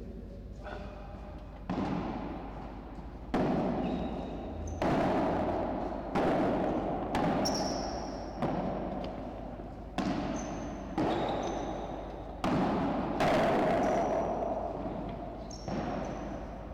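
Padel rally: the ball is struck by rackets and bounces around the court, giving a sharp knock about every second or so. Each hit rings on in the echo of the covered court.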